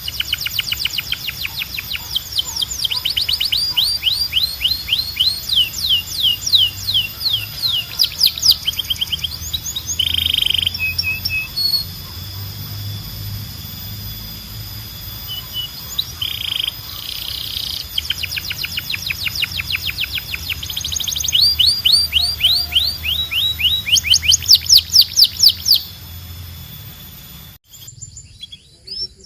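Domestic canary singing: long rapid trills of quickly repeated downward-sweeping notes, with a few short whistled notes and brief pauses between phrases. The song cuts off abruptly shortly before the end.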